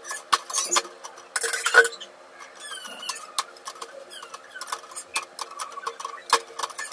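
Kitchen clatter of cooking: scattered light clicks and clinks of utensils and cookware, with a louder scraping rustle about one and a half seconds in.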